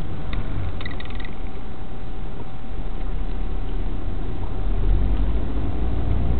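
Steady low rumble of a car's engine and road noise heard from inside the cabin as it drives slowly in traffic, with a few faint high ticks about a second in.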